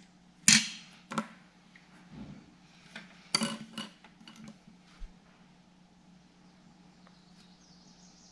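Sharp clicks and short rattles of needle-nose pliers and stiff copper wires being worked inside a wall socket box, bunched in the first five seconds and then stopping, over a steady low hum.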